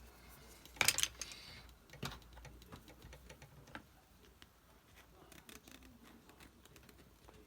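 Paintbrush dabbing and tapping paint onto watercolour paper: a run of short, irregular taps, loudest in a quick cluster about a second in, with lighter ticks after.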